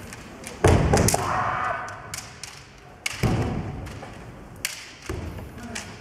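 Kendo bout: three heavy thuds of bare feet stamping on a wooden gym floor, about half a second, three and five seconds in, with sharp clacks of bamboo shinai and a drawn-out kiai shout after the first stamp.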